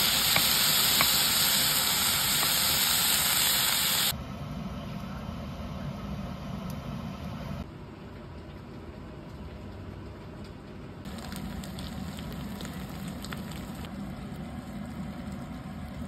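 Beef cubes searing in a hot wok, a loud, steady sizzle for the first four seconds. It then cuts to a quieter frying hiss, which swells again after about eleven seconds as chicken and sweet potato cook in a red sauce.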